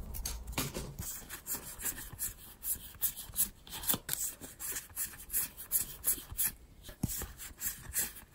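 Weiss Schwarz trading cards being slid one past another in the hands as a pack is flipped through: a quick, irregular run of soft rubs and flicks.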